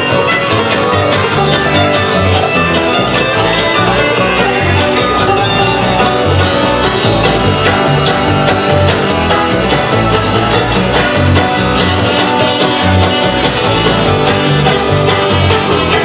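A bluegrass string band playing an instrumental passage live: picked banjo, fiddle, acoustic guitar and upright bass walking low notes under them.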